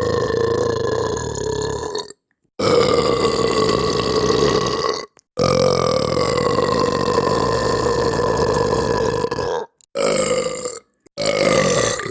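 A person belching, a run of long, drawn-out burps one after another with brief breaks between them: two very long ones of about four seconds each, with a steady pitch that droops slightly, then two short ones near the end.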